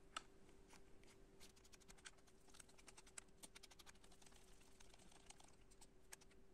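Faint, irregular small clicks and ticks of a long hex screwdriver turning a socket head cap screw into a 3D-printed plastic part, with the part rattling in the hand, over a faint steady hum.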